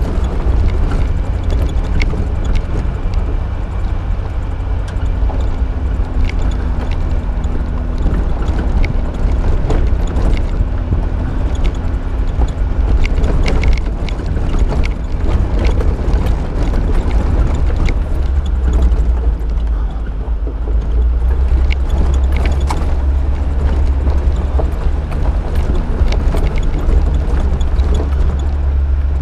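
Suzuki SJ413 driving at low speed on a rough dirt trail: its 1.3-litre four-cylinder engine runs steadily under a deep rumble, with many small knocks and rattles as it rolls over the rough surface.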